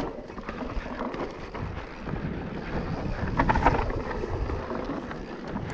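Enduro mountain bike descending a loose dirt forest trail: tyres grinding over dirt and roots and the bike rattling over bumps, with wind noise on the camera microphone. Busiest about three and a half seconds in.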